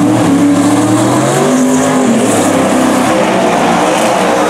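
High-horsepower drag car engine revving hard in repeated rising sweeps, with tyre squeal from a burnout.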